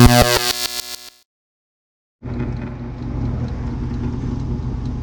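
A short intro sting: a loud, bright chord that dies away and ends about a second in. After a moment of silence, a steady low hum of machinery noise begins and continues.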